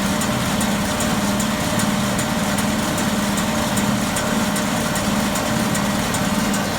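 Tractor engine running steadily with the PTO-driven John Deere 567 round baler turning behind it, a low hum pulsing a little over twice a second with faint ticks at the same pace, while the baler net-wraps a finished bale.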